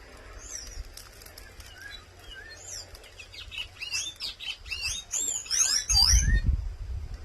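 A sabiá (thrush) calling: a run of short, quick chirping notes that come faster and denser, then stop abruptly about six and a half seconds in. A low rumble is heard near the end.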